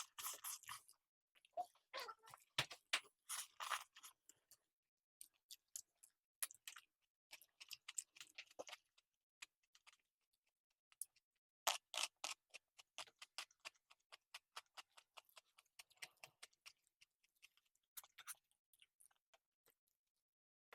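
Eating sounds: chewing and crunching of rice, salad and green bean and potato curry, in short irregular bursts of small wet clicks and crunches.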